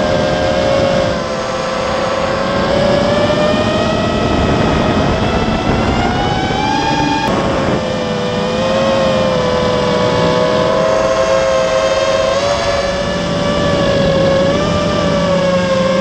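Spedix Black Knight 210 racing quadcopter's brushless motors whining, heard from the quad's onboard camera, the pitch rising and falling with the throttle. The tone climbs for a couple of seconds and then drops abruptly about seven seconds in.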